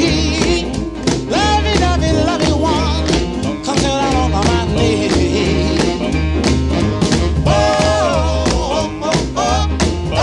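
A song with a singer over guitar, drums and bass, with a steady beat.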